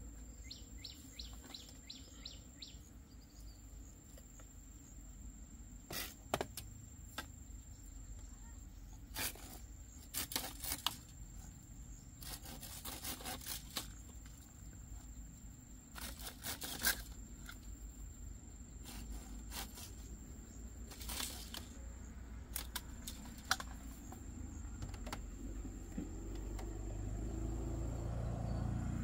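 Scattered sharp knocks and taps of bamboo poles being handled and worked with a machete, coming in irregular clusters. A steady high-pitched insect drone sits behind them, with a quick run of bird chirps about a second in, and a low rumble builds near the end.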